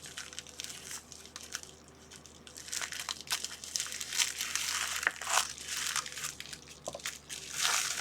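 Plastic packaging crinkling and rustling as it is handled and opened, with scattered small clicks; the rustling grows busier about halfway through.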